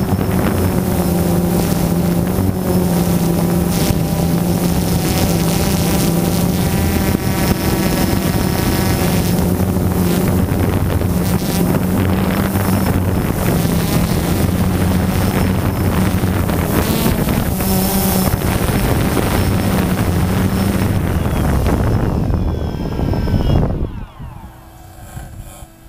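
Quadcopter drone's propellers and motors humming steadily in flight, recorded on the drone itself. About 24 seconds in it sets down and the motors spin down, the sound dropping away sharply.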